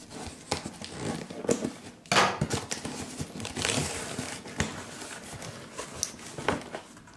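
A cardboard box sealed with clear packing tape being torn open and its flaps folded back: scraping, crackling and knocks of cardboard and tape, with a loud rip about two seconds in and another rough tearing stretch a little later.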